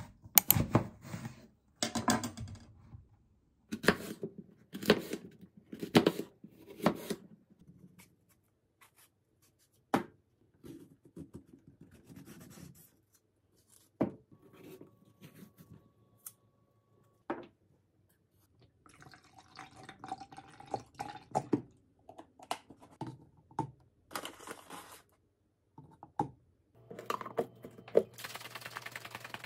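Kitchen knife cutting through a crisp apple on a wooden cutting board: a quick run of crunchy cuts and knife taps on the board, then single taps and scrapes spaced a few seconds apart. Near the end a steady noise starts as a drink is shaken in a plastic shaker cup.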